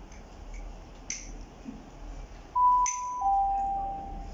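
Station public-address chime: two clean electronic notes, a higher one and then a lower one held for about a second, the signal that an automated announcement is about to follow.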